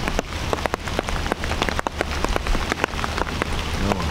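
Rain falling on a fabric umbrella held just overhead: a steady hiss of rain with drops striking the canopy as sharp, irregular ticks, several a second.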